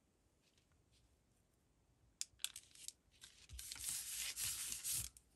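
Paper being torn by hand: a few light clicks a little after two seconds in, then a tearing sound lasting about a second and a half near the end.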